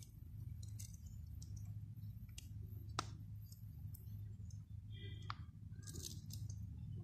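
Small anchovies being cleaned by hand with a knife: scattered soft clicks and scrapes of the blade on the fish, with one sharper click about three seconds in, over a faint low hum.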